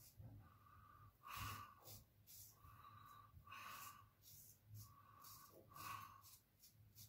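Faint straight-razor shaving across the grain on lathered stubble, mixed with the shaver's breathing through the nose, which comes in soft pairs about every two and a half seconds.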